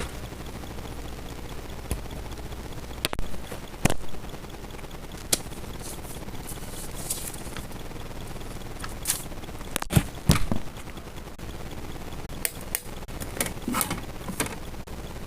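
Small objects being handled and set down: scattered sharp clicks and knocks, the loudest a pair of knocks about ten seconds in, mixed with short bursts of rustling.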